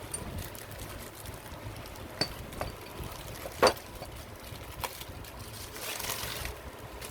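A few light clicks and one louder, ringing metallic clink from steel parts and tools being handled, most likely the diamond wire, connector sleeve and crimping tool, with a brief hiss near the end.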